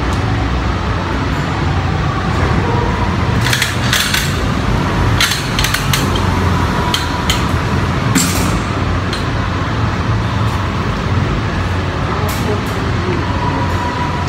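Wire shopping cart rolling on a concrete floor, a steady rumble from its wheels with the metal basket rattling and several sharp clanks, most between about four and eight seconds in.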